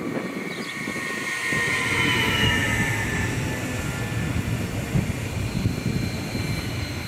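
A Stadler FLIRT 3 electric multiple unit passing close by at speed. Its motor whine falls in pitch as it goes by, loudest about two seconds in, with steady wheel-on-rail rumble and irregular knocks.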